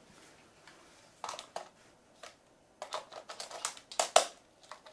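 Clicks and taps of plastic handling on a Canon EOS 30D DSLR body as its BP-511 battery is fitted, loudest about four seconds in.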